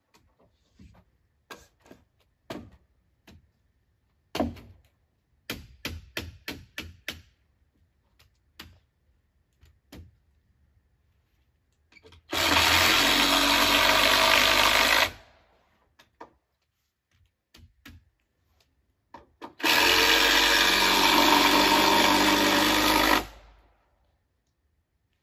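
Power drill driving screws into a wooden post and beam, in two steady runs of about three seconds each, some seven seconds apart. Before the first run there is a scatter of light knocks and taps.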